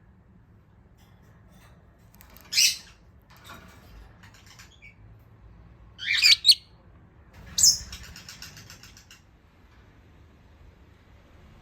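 Jumbo budgerigar giving short, sharp chirps: one, then a quick pair a few seconds later, then another followed by a brief soft chatter.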